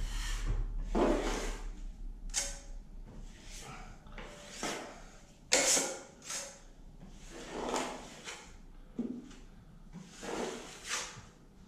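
A 12-inch Marshalltown steel trowel scraping setting-type joint compound over taped drywall. It makes about ten short sweeping strokes, spaced irregularly.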